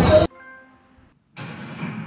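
Quick cuts between clips: loud music stops abruptly just after the start, and after a brief near-silence a television programme's sound begins about a second and a half in.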